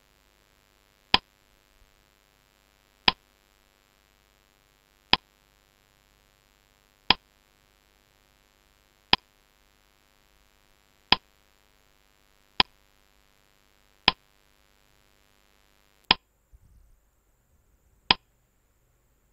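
Clock-tick sound effect of a quiz countdown timer: ten single sharp ticks, mostly about two seconds apart, with near silence between them.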